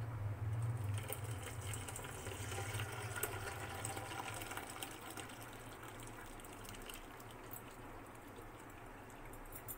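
Lime-curdled milk poured from a steel vessel onto a cotton cloth strainer, the whey splashing and running through the cloth as the curds collect. The pouring is loudest over the first few seconds and tails off after about five seconds.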